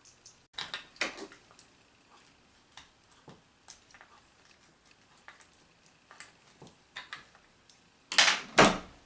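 Irregular clicks, taps and light clatter of small parts and tools being handled during assembly of a 3D printer kit, with a louder scraping or rustling sound in two quick pulses near the end.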